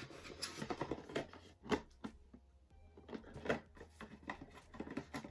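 Cardboard advent calendar being handled and one of its doors opened: scattered taps, clicks and rustles of card and packaging.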